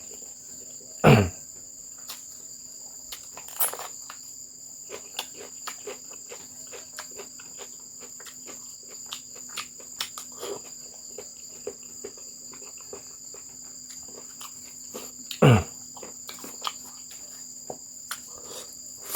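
Steady chorus of crickets, a continuous high trill at two pitches. Over it come many small clicks and smacks, and two loud short sounds that fall steeply in pitch, about a second in and about fifteen seconds in.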